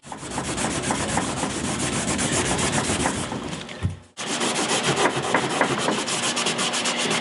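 Small piece of wet sandpaper rubbed by hand in quick back-and-forth strokes over wet gelcoat on a kayak hull, a rhythmic scratchy rasp, with a brief break about four seconds in. This is wet sanding a fresh gelcoat patch level with the old gelcoat around it.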